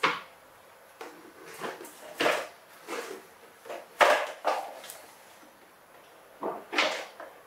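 Plastic toy dump truck knocking and scraping on a hard floor as a baby monkey tips it and lifts its dump bed: a string of irregular hollow clunks and scuffs, loudest about four seconds in.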